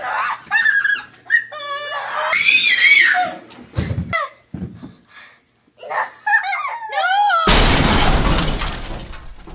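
Children yelling and screaming, with a short low thump just before four seconds in. Near the end a loud burst of rushing noise takes over and fades away over about two seconds.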